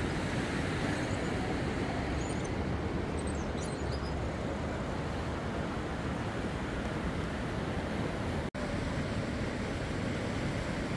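Steady rushing noise of the flooded Neckar river, with wind on the microphone adding a low rumble. It drops out for an instant about eight and a half seconds in.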